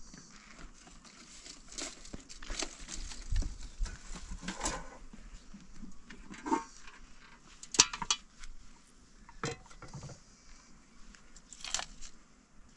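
Rustling and light clinks and knocks of household things being handled, a bag among them, with a few sharp clicks, the sharpest about eight seconds in.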